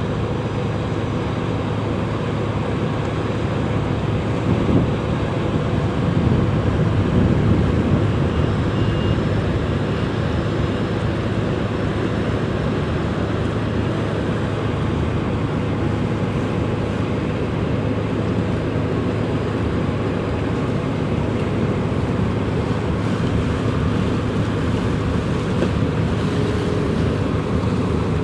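Steady drone of a vessel's marine diesel engine working astern during undocking, with a steady low hum and wind on the microphone. The engine noise swells for a few seconds about four seconds in, then settles.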